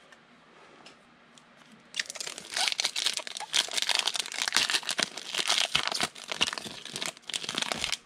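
Foil trading-card pack wrapper being torn open and crinkled. It starts about two seconds in and goes on as a dense run of crackling.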